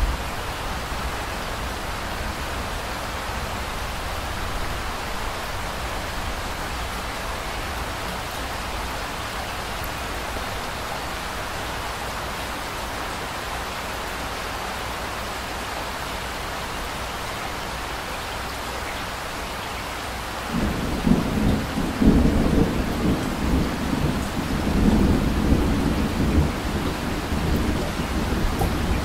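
Steady rain hiss; about two-thirds of the way through, low rolling thunder comes in and rumbles on, swelling and easing, over the rain.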